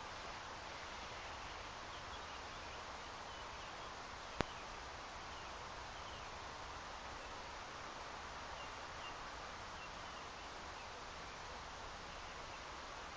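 Calm outdoor riverbank ambience: a steady hiss with faint, scattered short chirps, and one sharp click about four seconds in.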